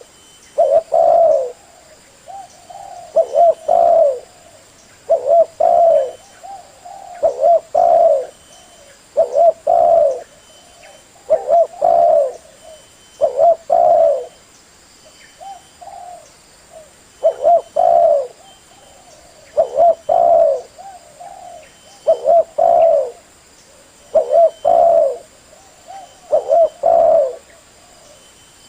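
Male spotted dove cooing, the song used to lure wild doves. The call phrase repeats about every two seconds: a few short notes followed by a longer coo.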